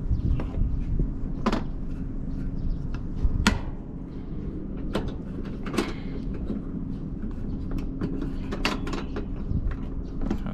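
A hinged plastic box on a Shacman truck chassis being swung and handled, giving several separate sharp clicks and knocks of plastic and its metal mounts, over a steady low hum.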